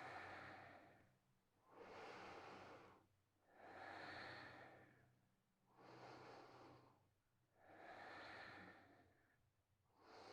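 A woman's slow, deep breaths, faint and even, in and out about every two seconds, about six breaths in all.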